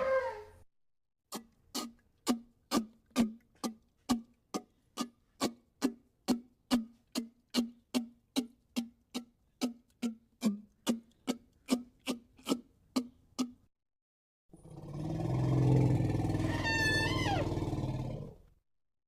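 Cartoon dragon sound effects: a long run of evenly spaced low thuds, about two a second, then after a pause a roar of about four seconds with a falling screech on top.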